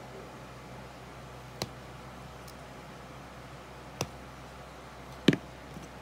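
Small electrical parts (a power plug, its cable, a screwdriver and a relay timer module) handled on a rubber work mat: three short clicks and knocks, the loudest a double knock near the end, over a steady low hiss.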